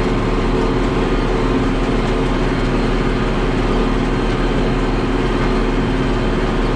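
International 886 tractor's diesel engine running steadily under load, pulling a New Holland 654 round baler as it finishes a bale.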